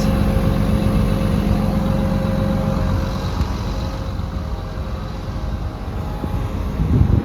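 The John Deere 950J bulldozer's Liebherr diesel engine running steadily, with a short thump just before the end.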